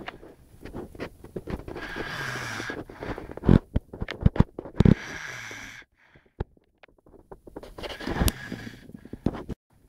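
Snoring: about three long, noisy breaths a few seconds apart, some with a low pitch that falls as the breath fades. Several sharp clicks in the middle are the loudest sounds.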